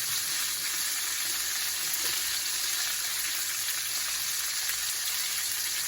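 Chicken thighs with freshly added green peppers and onions sizzling steadily in a frying pan.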